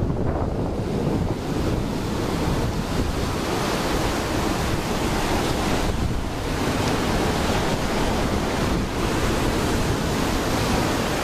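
Small ocean waves breaking and washing up a sandy beach in a continuous rush of surf, with wind buffeting the microphone.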